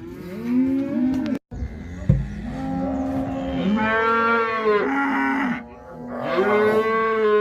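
Cattle mooing: several overlapping long, drawn-out moos, with two loud ones in the second half. The sound cuts out completely for an instant about a second and a half in.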